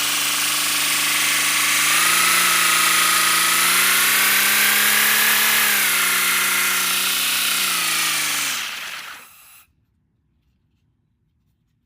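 3D-printed V12 air engine running on compressed air, a pitched hum under a strong air hiss. It speeds up about two seconds in, holds, slows around six seconds, then winds down and stops about nine seconds in.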